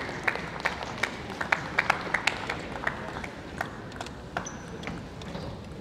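Scattered audience applause in a sports hall: separate hand claps over a low crowd murmur, thinning out and fading over the seconds.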